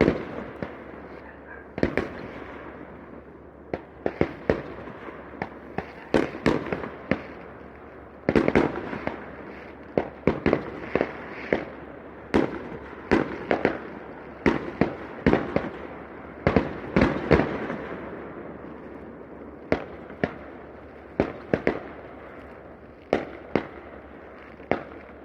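Fireworks going off: a long run of irregular bangs, some in quick clusters, each with a short echoing tail, over a steady rumble of more distant explosions.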